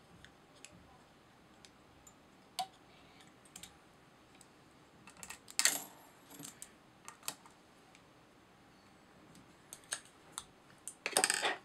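Small, light metal clicks and taps of fly-tying tools being handled, a whip finisher and scissors clearing the thread after the whip finish, in scattered single clicks, with a denser clatter about halfway through and again near the end.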